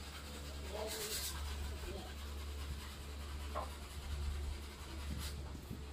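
Steady low hum with faint, indistinct voices, a brief hiss about a second in and a few light clicks near the end.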